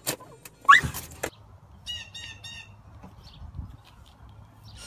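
A bird giving three quick, evenly spaced calls about two seconds in, after a short rising squeal and a few clicks near the start.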